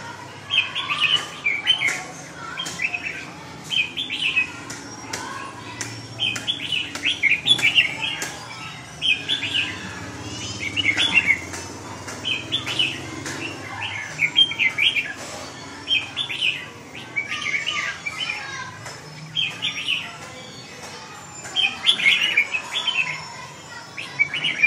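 Caged red-whiskered bulbul in full competitive song: short, loud warbled phrases repeated every second or two, with sharp clicks between them.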